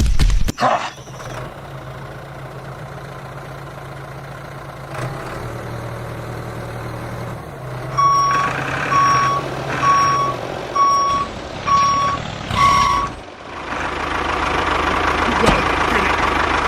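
A vehicle reversing alarm beeps six times, about once a second, over a low steady engine hum. A louder engine noise builds near the end.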